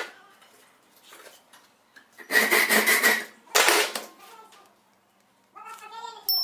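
Metal clatter and scraping as a steel bolt is handled and clamped in a bench vise: a longer rasping stretch about two and a half seconds in and a shorter clank about a second later. A short wavering tone follows near the end.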